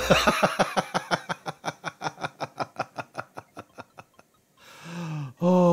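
A man laughing hard in a long run of quick, even 'ha' pulses, about six a second, that gradually fade out over about four seconds.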